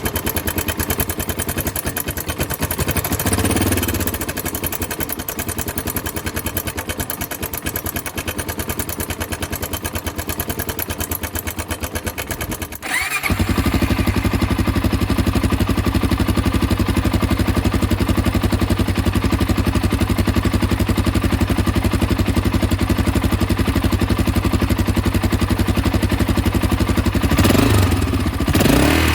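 Honda XR400M's single-cylinder four-stroke engine running at idle, with a short rise in revs a few seconds in and two quick throttle blips near the end. About halfway through it dips for a moment and comes back louder and steadier.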